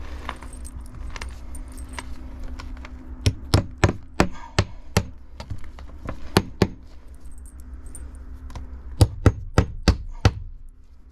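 Hammer driving nails through the nailing slots of vinyl board and batten siding. Sharp strikes come in short groups, then a quick run of about six near the end.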